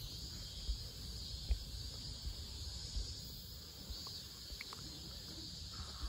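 Steady high-pitched insect drone, with a low rumble and a few soft thumps from wind or handling on the phone's microphone.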